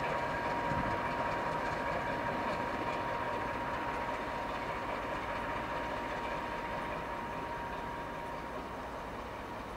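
BR Class 14 diesel-hydraulic shunter D9551, with its Paxman Ventura diesel engine, running as it moves slowly away along the yard tracks, fading gradually, with a steady high whine throughout.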